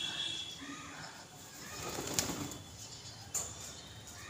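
House sparrows chirping now and then while feeding, with a single sharp click about two seconds in.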